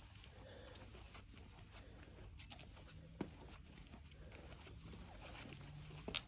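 Faint footsteps on a paved garden path, with scattered light ticks and two sharper clicks about three and six seconds in.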